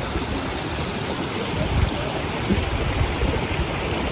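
River water running steadily over rocks, a continuous rushing with uneven low rumbles underneath.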